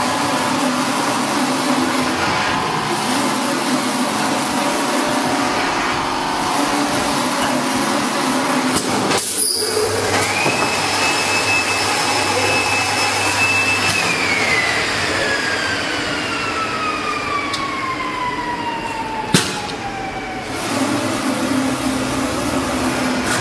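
Digital printing machine for paperboard running with a steady mechanical noise. About ten seconds in, a high whine sets in, holds for a few seconds, then falls steadily in pitch over several seconds, with a sharp click near its end.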